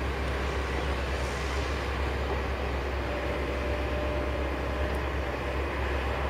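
Volvo articulated dump truck's diesel engine running as it drives on a haul road, with other earthmoving plant working, heard as a steady low rumble. A faint whine joins about three seconds in.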